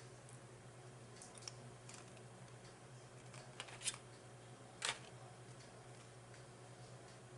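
Quiet eating sounds: scattered small clicks, with two sharper clicks about four and five seconds in, over a low steady hum.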